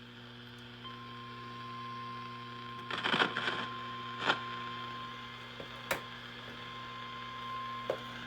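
Emergency alert attention tone heard over AM radio: a single steady high tone starts about a second in and holds, over a low steady hum. Short crackles of static break through about three, four, six and eight seconds in.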